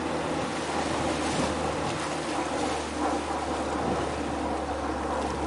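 Wind rushing over the microphone above a steady low hum.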